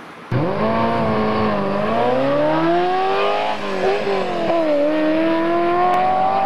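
Sports car engine pulling hard, cutting in suddenly just after the start. Its pitch climbs steadily, dips briefly around four seconds in, then climbs again.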